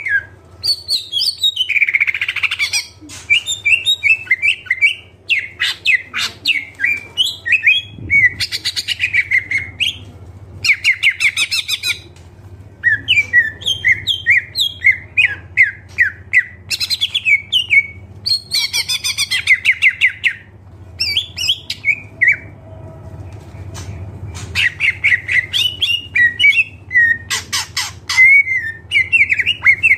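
Green leafbird (cucak ijo) singing continuously, full of isian (mimicked notes of other birds). Fast runs of chirps, squawky notes and rapid trills come in phrases a few seconds long, with brief pauses between them.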